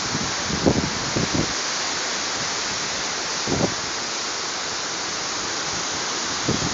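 Strong tropical-storm wind: a steady rushing hiss, with gusts buffeting the phone's microphone as low rumbles about half a second to a second and a half in, again at about three and a half seconds, and near the end.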